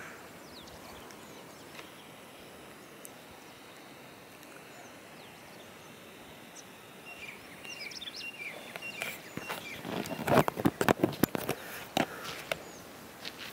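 Quiet open-country background with faint, scattered small bird chirps. From about eight seconds in, a run of irregular knocks and rustles, louder than anything else.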